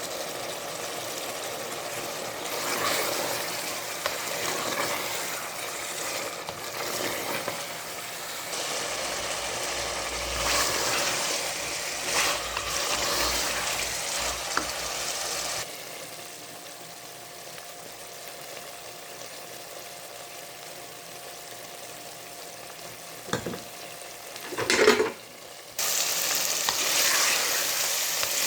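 Chicken karahi sizzling as it fries in the pan and is stirred, with a steady hiss that surges now and then. It turns quieter for a while, two knocks come near the end, and then the sizzling comes back louder.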